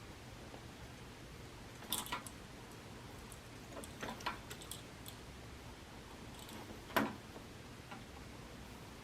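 A few faint clicks and light taps from handling a soldering iron, solder and wire while tinning the wire ends, loudest about seven seconds in, over a low steady hum.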